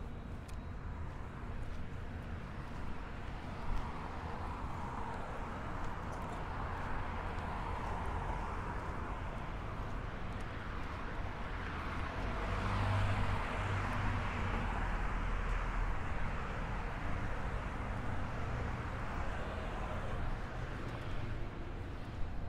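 Road traffic on a city street, steady, with a louder vehicle passing about halfway through.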